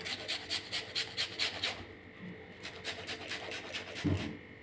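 A red onion rubbed back and forth on a flat stainless-steel hand grater, rasping strokes about five a second, strong for the first two seconds and then lighter. A soft thump about four seconds in.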